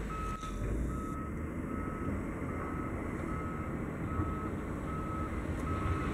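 Reversing alarm beeping steadily on one pitch, about two and a half beeps a second, over the low running of heavy diesel engines from a wheel loader and a Tatra 815 Terno dump truck as the truck is pushed backward up a rock heap.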